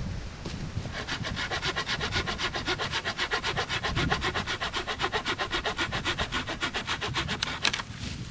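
Hand saw cutting through wood in quick, even strokes, starting about a second in and stopping shortly before the end.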